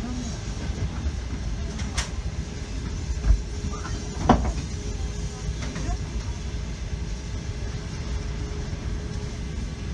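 Passenger train car running on the rails, heard from inside the carriage: a steady low rumble with a faint constant hum. A sharp knock comes about two seconds in, a low thump just after three seconds, and another knock a second later.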